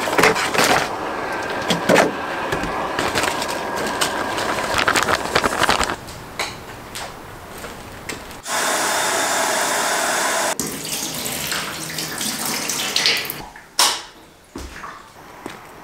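Plastic food packets crinkling and rustling as they are handled. Then a sink tap runs for about two seconds, with a steady hiss of water that starts and stops abruptly.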